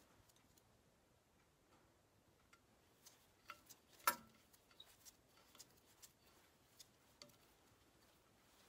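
Scattered light metallic clicks and taps from hands working the control levers inside a Massey Ferguson 35 hydraulic lift cover, the sharpest click about four seconds in; otherwise near silence.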